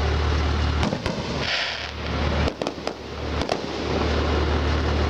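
Fireworks display: aerial shells bursting in sharp reports, a couple about a second in and a cluster between two and a half and three and a half seconds in, with a short hissing crackle around one and a half seconds. A steady low rumble runs underneath.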